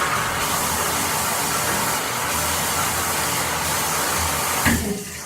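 A steady, loud rushing noise with no tone to it, like a blower or static, that fades out near the end.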